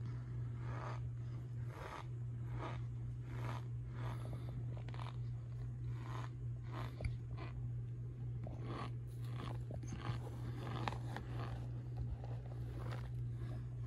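Cornstarch crunching and squeaking as a gloved hand presses and squeezes into loose powder and pressed cornstarch bars, a steady run of soft crunches about two a second. A steady low hum runs underneath.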